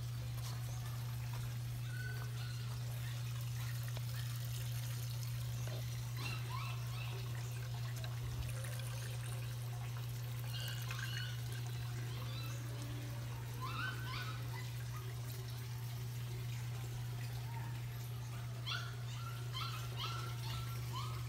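Water trickling through the bamboo NFT channels of an aquaponic system over a steady low hum. Short chirps come now and then, in a quick run near the end.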